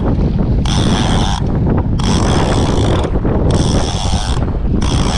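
Accurate Valiant 600NN conventional jigging reel whirring in short bursts, about one a second, while line is worked in against a big grouper on the line. Steady wind rumble on the microphone runs underneath.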